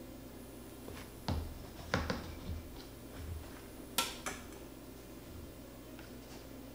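A kitchen knife knocking and scraping against a metal jellyroll pan as it cuts through a baked crescent-roll pizza crust: a few separate knocks, the sharpest about four seconds in.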